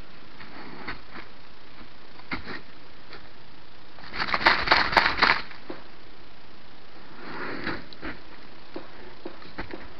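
A bear moving through forest litter close to the camera: a dense run of crackles and snaps of dry twigs and needles about four to five and a half seconds in, with a fainter rustle near eight seconds, over a steady hiss.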